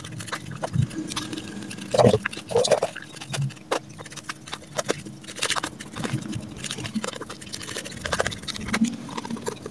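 Hands kneading a moist dough of crushed biscuit and tempe into fishing bait, a run of irregular squishing and crackling sounds.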